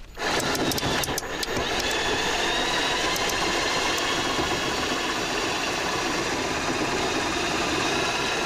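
Cordless drill driving a sheet metal screw through plywood into a metal rib of the van's wall, its motor running steadily under load as the screw bores into the metal. It starts just after the beginning, with a few clicks in the first second.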